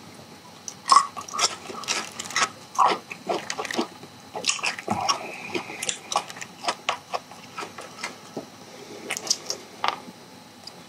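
Close-miked chewing of sauced charcoal-grilled chicken: irregular wet smacks and clicks of the mouth working the meat throughout.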